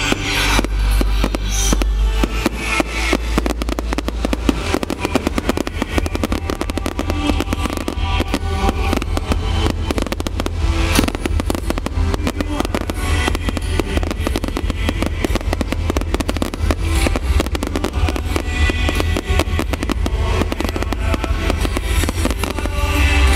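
Fireworks going off in rapid, dense succession, a continuous crackle of pops and bangs, with music playing alongside.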